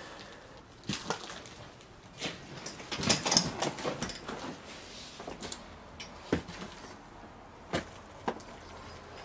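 Footsteps on a debris-covered floor: irregular knocks and crunches, thickest about three to four seconds in, with a few single sharp knocks after that.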